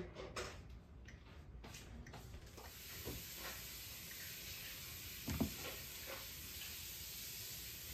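Faint clicks of a Nest thermostat's dial being turned and pressed, with a steady hiss that sets in about two and a half seconds in and a short thump a little past the middle.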